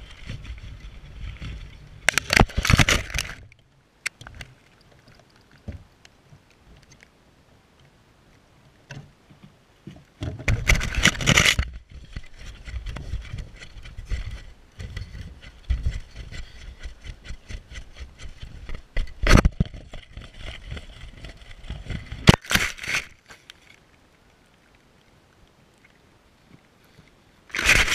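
Rushing and knocking from an Air Hogs toy plane carrying a GoPro as it is launched, flown and lands in grass. The noise comes in loud bursts about two, ten and twenty-two seconds in, with a sharp knock about nineteen seconds in and quieter stretches between.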